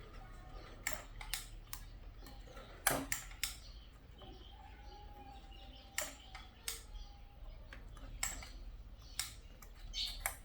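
Irregular sharp clicks and taps of small hard objects, about a dozen of them, the loudest about three and six seconds in, over a faint steady low hum.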